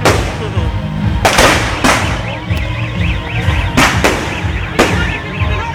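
Aerial fireworks exploding, about five loud bangs at uneven intervals, each with a short echoing tail.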